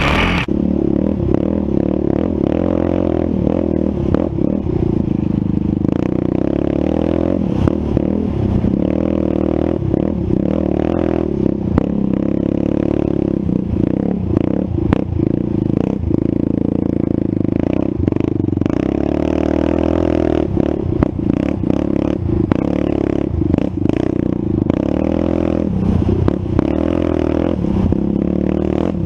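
ATV engine running and revving up and down again and again as it rides a sandy trail, with rattles and knocks from the machine jolting over bumps.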